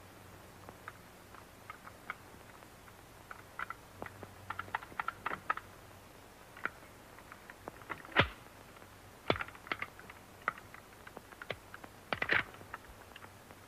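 A shotgun being handled and fiddled with: scattered light clicks and taps, with three louder knocks in the second half.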